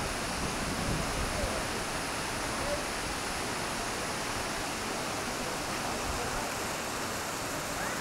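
Kurşunlu Waterfall pouring steadily into its pool: a constant rushing of falling water.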